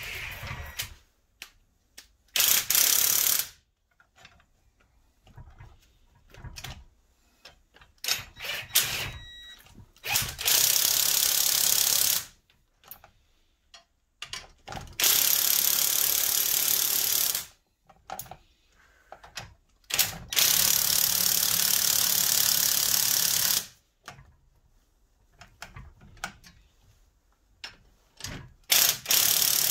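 A power wrench running the top nut on the piston rod of a Vauxhall Corsa C front suspension strut. It goes in five runs of one to three seconds each, with short blips and pauses between them.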